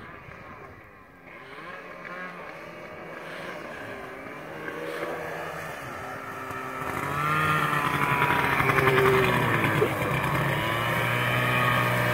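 Snowmobile engine, faint at first and growing louder as the sled approaches, its pitch rising and falling with the throttle. From about seven seconds in it is close and loud.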